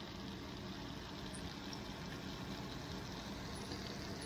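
Breaded lingcod fillets frying in olive oil in a pan, giving a steady sizzle.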